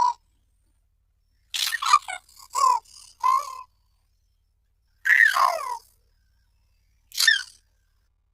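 Baby vocalising in short bursts with silence between them: a quick run of giggly syllables, then a coo that falls in pitch about five seconds in, and a brief squeak near the end.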